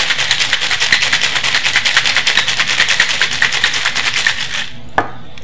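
Ice rattling hard in a metal cocktail shaker shaken fast, about eight strokes a second, which stops shortly before the end. A single sharp knock follows.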